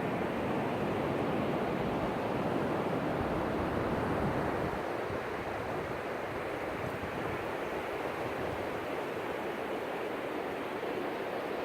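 Ocean surf washing on the beach, a steady rush of breaking waves that eases slightly about five seconds in.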